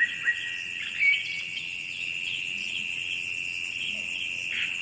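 Steady high-pitched insect drone, with a few short bird chirps over it, one about a second in.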